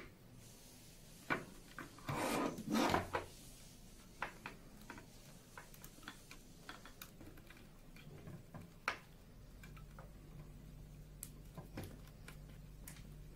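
Plastic fibre-optic splitter tray handled on a wooden desk: a click, then a scraping rub about two to three seconds in as the tray is turned over, followed by scattered light plastic clicks and ticks as the fibres are worked into place. A low steady hum comes in a little past halfway.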